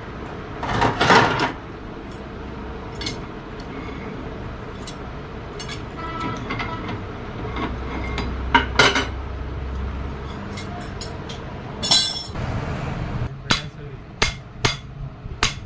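Metal tools clinking and knocking against the tractor's rear housing, with a louder scrape about a second in. Near the end comes a steady run of sharp hammer strikes on metal, two or three a second, typical of tapping a new PTO shaft seal into its housing.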